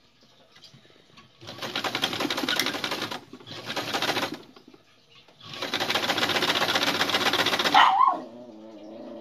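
Electric domestic sewing machine stitching a hem in three runs of fast, even needle strokes with short pauses between them. The last run is the longest, about two and a half seconds.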